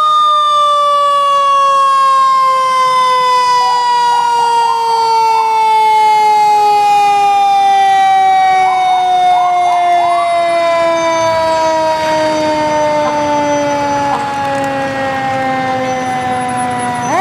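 Siren of a Pierce aerial ladder fire truck sounding a single long wail whose pitch falls slowly and steadily, then winds sharply back up right at the end.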